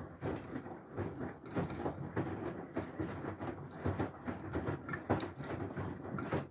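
Whirlpool FSCR90425 washing machine in its rinse cycle, its drum turning laundry through water with irregular sloshing and splashing. The sound cuts off suddenly at the end.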